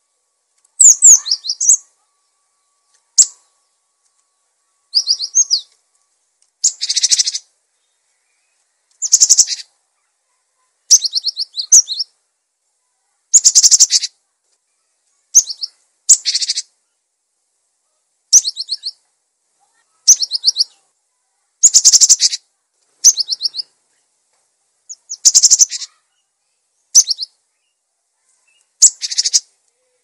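Cinereous tit (gelatik batu) singing energetically: short, high-pitched phrases of rapidly repeated notes, each under a second, given every second or two with silence between.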